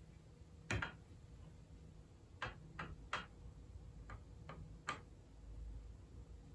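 Sharp clicks and light knocks of wood and tool on grand piano keys as a key-leveling bar is set across the key fronts. There is one louder knock about a second in, then six lighter clicks, unevenly spaced, between about two and a half and five seconds in.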